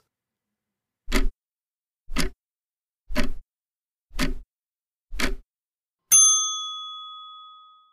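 Countdown timer sound effect: five clock ticks about a second apart, then a bell ding that rings out and slowly fades. It marks the end of the time allowed to answer.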